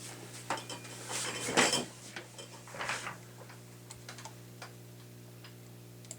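Scattered clicks and knocks of things being handled, the loudest about a second and a half in, over a steady low hum.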